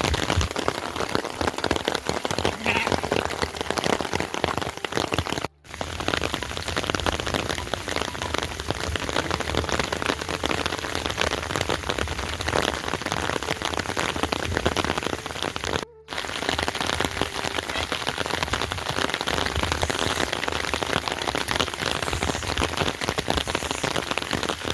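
Steady heavy rain falling, a dense, even patter of drops. The sound cuts out for a split second twice, about a third of the way in and again past the middle.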